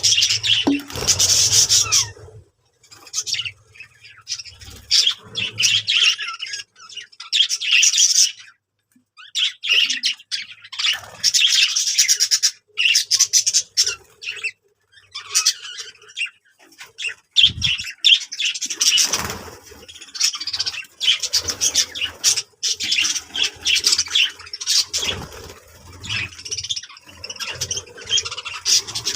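Birds chirping in repeated clusters of short high calls, with brief pauses between them.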